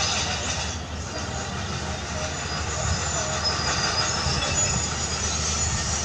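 Heavy diesel earthmoving machinery running steadily, a tracked excavator and a compactor: a continuous low engine rumble with mechanical clatter and hiss over it.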